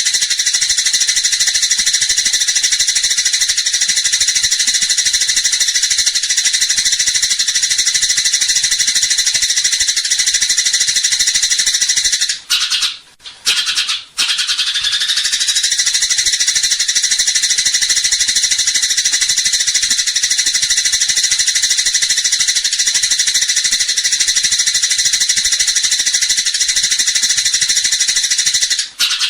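Eurasian tree sparrows (burung gereja) in fast, continuous high-pitched chattering, the rapid 'fighting' call used to tutor songbirds. It breaks off twice briefly a little before halfway through, and again near the end.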